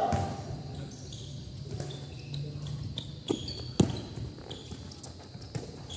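Basketball dribbled on a concrete court, with two hard bounces about half a second apart a little past three seconds in, the second the loudest.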